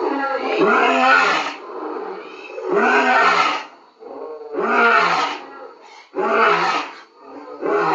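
Lion roaring in a bout of repeated calls about two seconds apart, the later calls shorter than the first, with another starting near the end.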